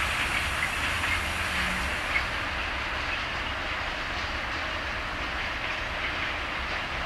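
Freight wagons rolling away over the rails: a steady rush of wheels on track with a low rumble and the clickety-clack of wheels over rail joints, easing a little after about two seconds.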